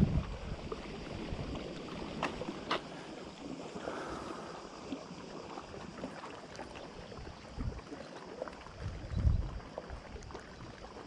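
Wind gusting on the microphone over a steady hiss of wind and water at the quay edge, with a couple of sharp clicks about two seconds in.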